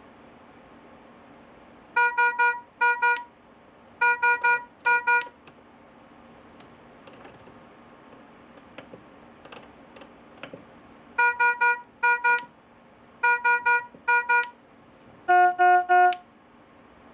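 Philips IntelliVue MP70 patient monitor sounding its high-priority alarm: ten beeps in a three-two, three-two pattern, repeated after about a six-second pause. Near the end comes a different series of four lower, louder beeps. A few faint clicks fall in the pause.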